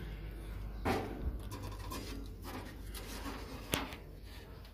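Handling noises as a foil-wrapped piece of wood is put into a toaster oven: a soft knock about a second in, some scraping, and a single sharp click near the end.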